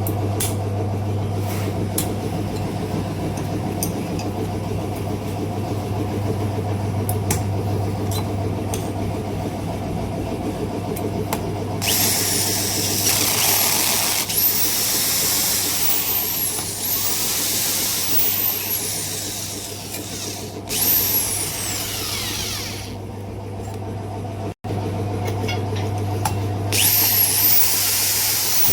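A steady low hum with small handling clicks. Then a small high-speed power tool runs in two spells, from about twelve seconds in to about twenty and again near the end, its whine sagging in pitch again and again as it bites into the work.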